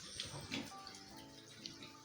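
Faint background music with steady held notes.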